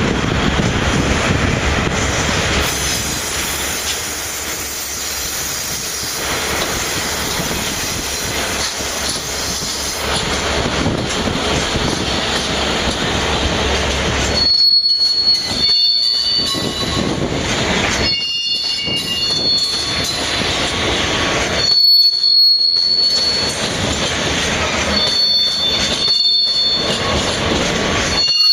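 Freight train of oil tank wagons rolling past with a steady rumble. From about halfway, wheels squeal intermittently in high thin tones, and the noise briefly drops out several times.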